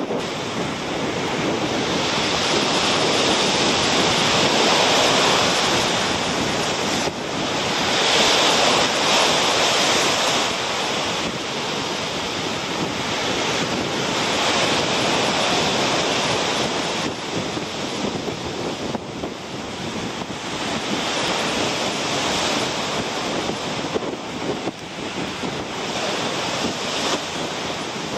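Rough sea surf breaking on a rocky shore, a steady wash of noise that swells and eases every few seconds, with wind on the microphone.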